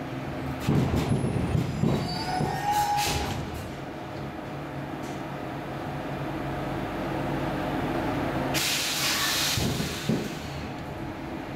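Stockholm Metro C14 car standing at a station with its equipment humming steadily. There are a few knocks in the first few seconds and a loud hiss lasting about a second, starting about eight and a half seconds in.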